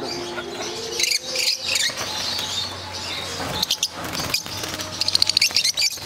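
Caged lovebirds chirping and chattering, with a rapid run of shrill calls near the end.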